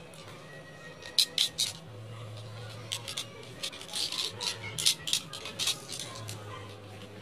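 Irregular short scraping clicks and rustles of a cord being unwound by hand from a cap brim strapped over a plastic container mould.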